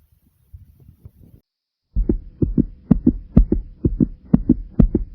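A person's heartbeat recorded close up. After faint low rumbling and a brief silence, it sets in about two seconds in as loud, low double thumps (lub-dub), about two beats a second.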